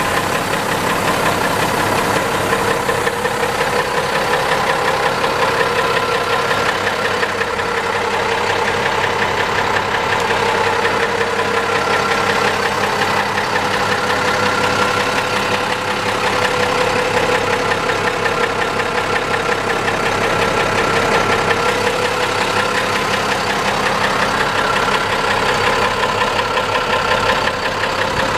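1989 Unimog FLU419 SEE's diesel engine idling steadily.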